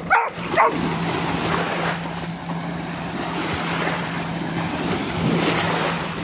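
A dog gives two quick excited barks, then dogs splash and run through shallow water at the shoreline, with small waves and wind on the microphone. A steady low hum runs underneath.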